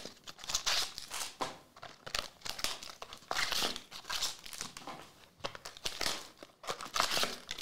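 A cardboard trading-card box being torn open by hand, with its wrapper crinkling in irregular bursts.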